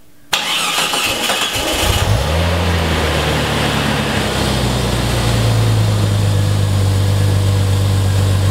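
Jeep Cherokee XJ engine cranking on the starter for under two seconds, then catching with a brief rise in revs and settling into a steady idle.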